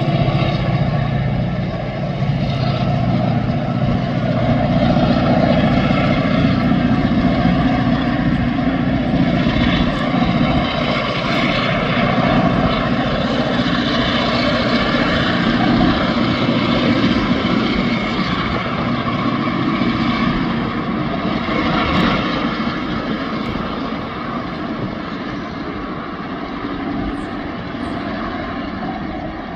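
Diesel freight locomotives running past under power, a loud, steady engine drone that eases somewhat near the end as the loaded log wagons follow them by.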